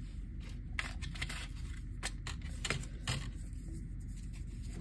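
Thin clear plastic clamshell case of a small album being handled and pried open by hand: a string of irregular plastic clicks and crackles, about eight across the few seconds.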